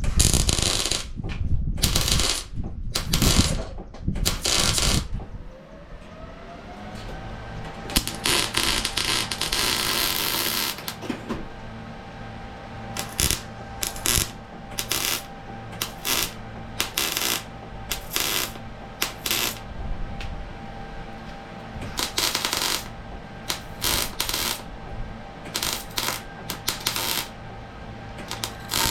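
Short, irregular metallic clinks and taps, as of tools and metal parts knocking on sheet metal, over a steady machine hum that starts about five seconds in.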